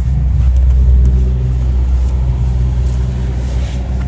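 Truck engine running steadily: a loud, even low rumble.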